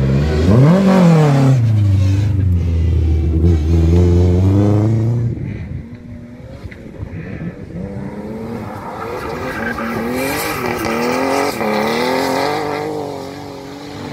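Rally car engine revving hard through a corner: a quick rise and fall in pitch about a second in, then held high for a few seconds before dropping away. After a quieter spell, a second rally car's engine is heard, its pitch rising and falling several times as it drives through the gears.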